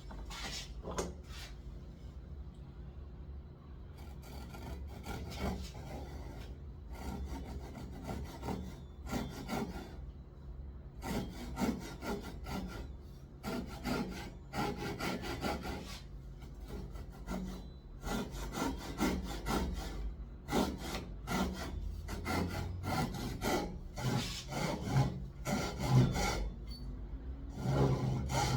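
A hand saw cutting wood in runs of quick back-and-forth strokes, with brief pauses between runs.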